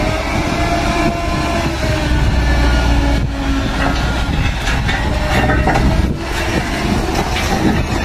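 Heavily overloaded dump truck's diesel engine labouring at low speed on a steep dirt track, with a deep rumble and steady whine. Knocks and rattles from the body and chassis come in a few seconds in, and the rumble eases about six seconds in as the truck passes close by.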